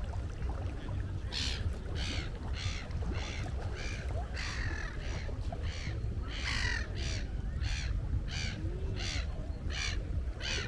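Gull calling: a long run of harsh repeated calls, about one every half second or so, starting about a second and a half in, over a steady low rumble.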